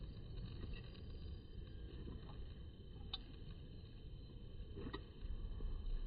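Low, steady background rumble, with two faint short ticks about three and five seconds in.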